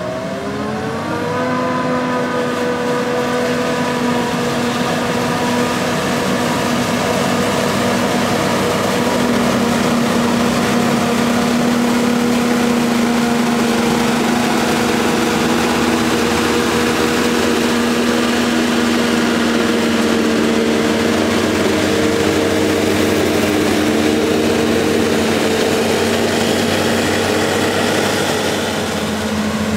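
Heavy diesel engine of harvest machinery rising in pitch as it speeds up in the first second or so, then running steadily at high revs under a loud mechanical whir.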